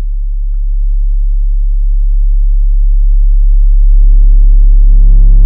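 Subwoofer in a car playing a steady, very deep bass test tone while the volume is turned up, so it grows steadily louder, reaching about 106 dB on an SPL meter. About four seconds in, a buzzing edge of overtones joins the tone, and it thickens again near the end.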